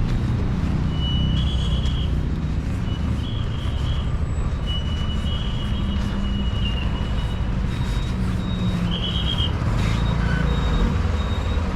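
Road traffic: vehicle engines running in a steady low rumble, with short high-pitched beeps a few times.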